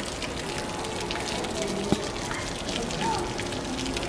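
Ground-level fountain jet spraying up and splashing back onto wet stone paving: a steady hiss of falling water, with one sharp click a little under two seconds in.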